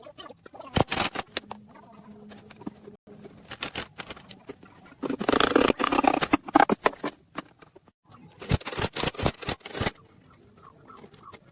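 Irregular clusters of sharp clicks and knocks, densest and loudest about five to six and a half seconds in, with a quick run of clicks later on.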